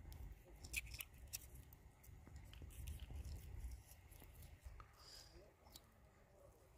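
Faint scrapes and clicks of a small folding knife blade cutting into a raw chicken leg, clustered about a second in and again near the end, over a low rumble.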